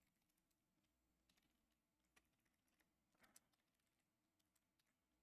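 Near silence with a few faint computer keyboard keystroke clicks. The clearest is a quick pair a little over three seconds in.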